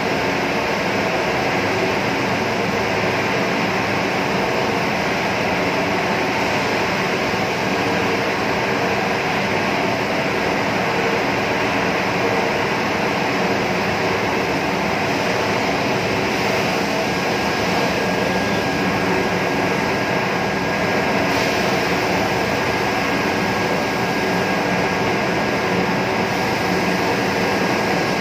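Steady, loud machinery drone, an even mechanical noise with several constant hum tones in it; a faint high steady tone joins about halfway through.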